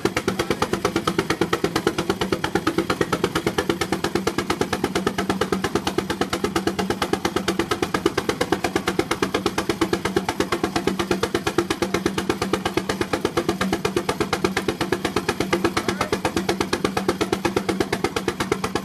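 Baker 23-90 Uniflow steam traction engine working hard under full load on a Prony brake, its exhaust beating in a fast, perfectly even rhythm, with a steady low hum running beneath.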